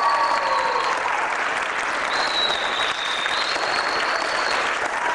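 Audience applauding steadily, with a long high-pitched tone over the clapping from about two seconds in until near the end.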